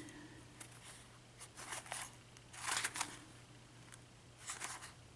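Faint handling noise of small locks being picked up and turned over: a few short, scattered clicks and rustles over a steady low hum.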